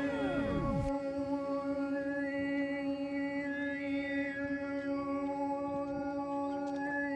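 Didgeridoo played with a steady drone, its upper overtones shifting up and down over the held tone, with a falling swoop in the first second.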